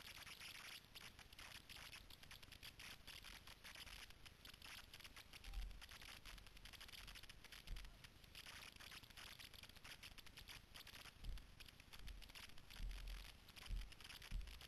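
Footsteps crackling through dry leaf litter and undergrowth, with scattered low thumps from about the middle on and more toward the end, over a faint steady hiss.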